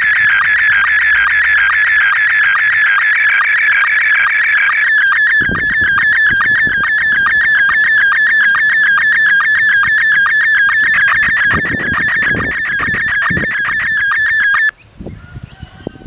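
Slow-scan television (SSTV) image signal heard through a handheld FM radio's speaker: warbling tones in a fast, steady rhythm of scan lines. The signal cuts off suddenly near the end as the transmission finishes. Low thuds sound underneath in the second half.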